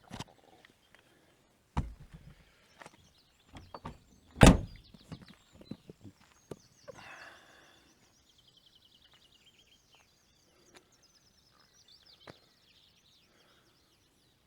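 Van door knocks and a single loud thunk about four and a half seconds in as the door is worked, with lighter clicks and knocks around it. Faint rapid bird chirping follows through the second half.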